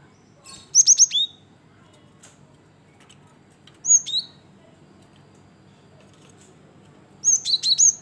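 Male cinereous tit (gelatik batu) calling in three short bursts of sharp, high whistled notes, each note falling quickly in pitch. The first and last bursts hold four or five quick notes, the middle one two.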